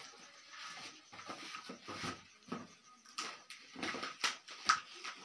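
Plastic packaging crinkling and rustling as a parcel is unwrapped by hand, in irregular crackles with a few sharper crackles in the second half.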